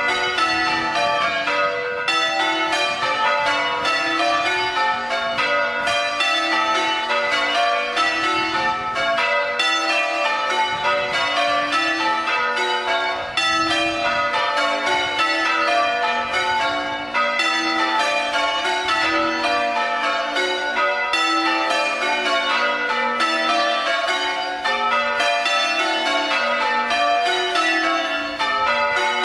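Church tower bells change ringing: a ring of bells struck one after another in a rapid, even, unbroken sequence, rung as part of a quarter peal.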